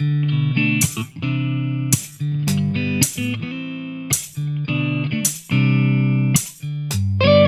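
Background music: an instrumental guitar passage with plucked chords changing about once a second over a steady beat.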